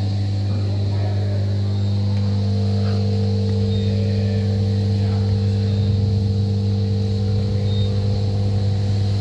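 Steady machinery hum in a cow barn: a constant low electric-motor drone with a higher steady tone joining it about two and a half seconds in.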